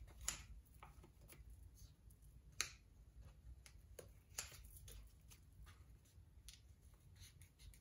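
Hand scissors cutting foam craft paper: a few faint, separate snips at irregular intervals.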